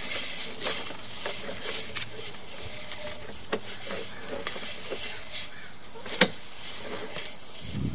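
Sewer inspection camera being pushed along the pipe: a steady hiss with scattered light clicks and knocks, a sharper knock about three and a half seconds in and a loud sharp click about six seconds in.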